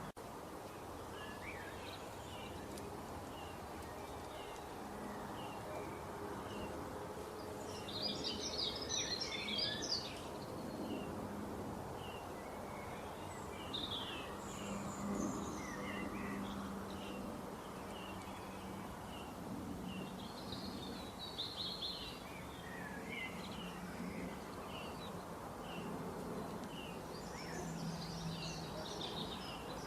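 Small birds chirping: a steady run of short repeated chirps, with louder bursts of rapid twittering about eight seconds in, around twenty seconds, and near the end, over a steady background hiss.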